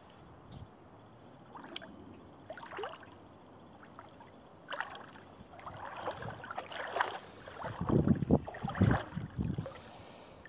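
Bare feet wading through shallow stream water over a sandy bottom. First a few small splashes, then louder sloshing steps in the second half, with the heaviest two near the end.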